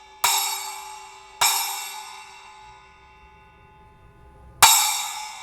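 Zildjian 8-inch K splash cymbal, its keyholed centre hole freshly repaired, struck three times; each hit rings bright and fades away, the third the loudest.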